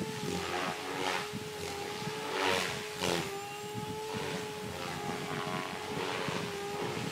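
SAB Goblin 500 electric RC helicopter in flight, a steady whine from its motor and rotor that wavers slightly in pitch, with several brief swells of whooshing noise, the strongest about two and a half and three seconds in.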